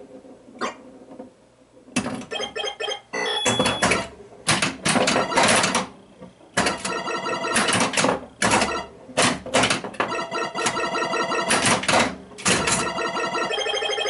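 1979 Bally Star Trek pinball machine in play. Its electronic game tones come in repeated bursts, mixed with sharp clacks from the flippers and playfield mechanisms, starting about two seconds in after a quiet moment.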